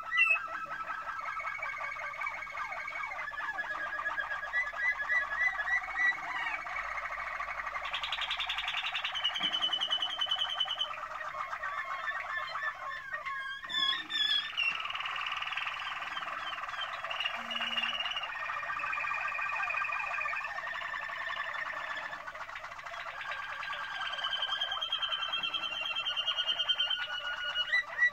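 Domestic canary song: long runs of rapid trills and rolls with held, changing pitched phrases, with a short break about halfway through.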